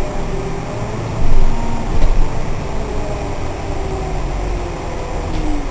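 Interior noise of a Solaris Urbino 8.6 city bus under way: a steady low rumble from the engine and drivetrain, with faint whining tones that slide in pitch. Two louder knocks come about a second and a half and two seconds in.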